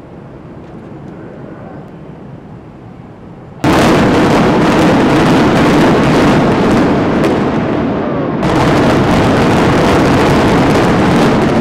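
Explosive demolition charges imploding a high-rise office building: a sudden, very loud, rapid string of blasts about three and a half seconds in that runs on for several seconds, then a second surge of blasts about eight seconds in as the building starts to come down.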